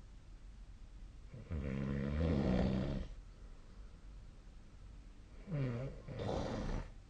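A sleeping person snoring: one long snore about a second and a half in, then a shorter two-part snore near the end.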